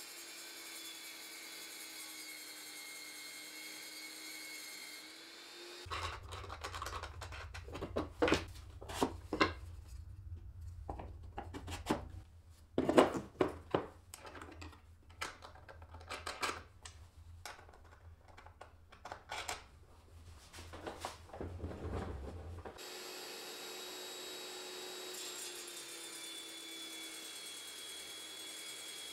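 A table saw and a cordless drill run steadily together, the drill spinning a wooden dowel against the saw blade in a homemade turning jig. For a long stretch in the middle the machines give way to irregular knocks, taps and clatter of hands working the MDF jig and its wing nuts, over a low hum. The steady machine whine returns near the end.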